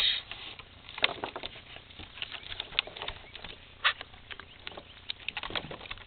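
Dog gulping small mullet out of a cast net: irregular quick smacks, snaps and wet clicks of its mouth.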